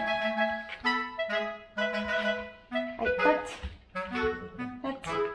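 Background music: a woodwind melody of short, changing notes over a low accompaniment.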